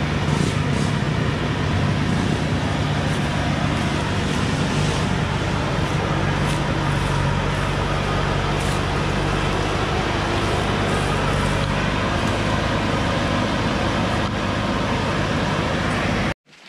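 Heavily loaded Thaco Forland diesel truck's engine running steadily as the truck crawls along a dirt forest track, then cut off abruptly near the end.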